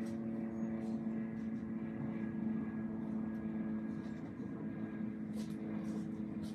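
A steady mechanical hum, even in pitch and level, with a few faint clicks near the end.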